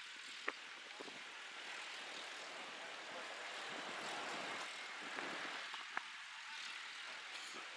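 Distant McDonnell Douglas MD-82 jet engines, the rear-mounted Pratt & Whitney JT8D turbofans, heard as a steady rushing roar as the airliner rolls along the runway after landing. Two short sharp clicks come about half a second in and again near six seconds.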